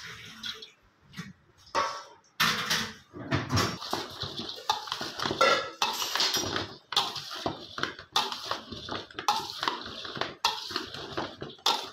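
Irregular clatter of dishes and metal utensils being handled, with many overlapping knocks and clinks.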